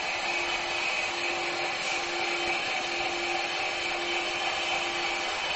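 Steady hiss of liquid nitrogen being transferred through a hose into a telescope camera's cryostat, with cold nitrogen boiling off and venting from it, and a faint low hum beneath.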